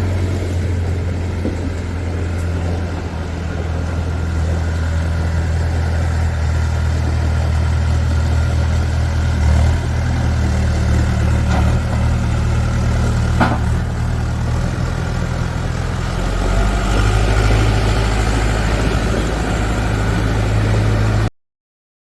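JCB 2CX backhoe loader's diesel engine running steadily at idle, with a single sharp click a little past halfway and a change in its deep note about three-quarters of the way through. The sound cuts off suddenly near the end.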